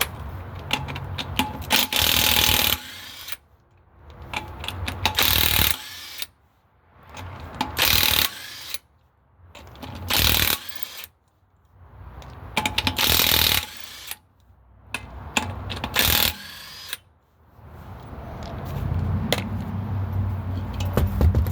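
Impact wrench loosening a wheel's lug nuts: six short, loud bursts two to three seconds apart.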